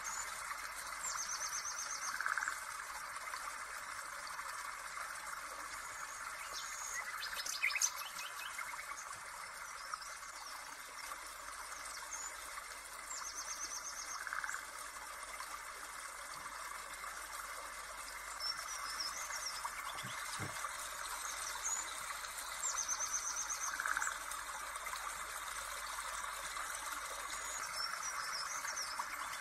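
Nature-sound background track: small birds chirping and trilling over a steady hiss like running water, the same trill coming back about every ten seconds as the recording loops. A short knock about eight seconds in.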